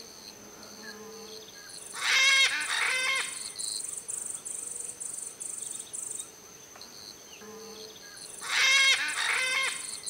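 Natural ambience: insects trill steadily in a high, pulsing chorus. Twice, about six seconds apart, an animal gives a short rapid series of louder pitched calls.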